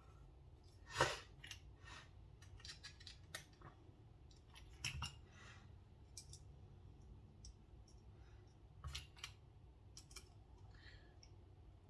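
Faint, scattered small metal clicks and taps as the parts of a Benchmade Bugout folding knife and a small screwdriver are handled and its screws driven in during reassembly.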